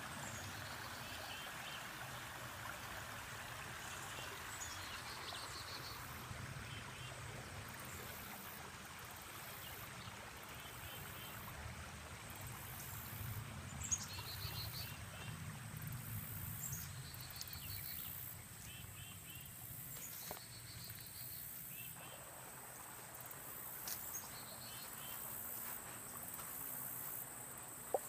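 Summer insects calling: a steady high buzz, with short chirping trills repeating every couple of seconds. Under them, a shallow rocky creek trickles, fading over the first several seconds, with a low rumble and an occasional sharp tick.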